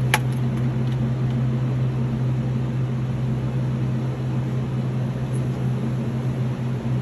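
Steady low hum of indoor range machinery, with one sharp click just after the start. No gunshot: the rifle is still on safe.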